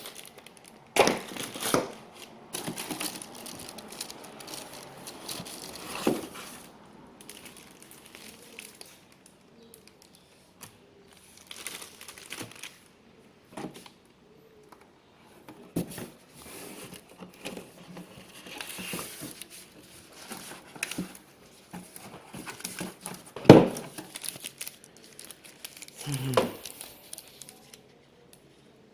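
Plastic packaging crinkling and rustling in irregular bursts as laptop accessories are unpacked by hand, with a sharp knock about three-quarters of the way through and a smaller one soon after.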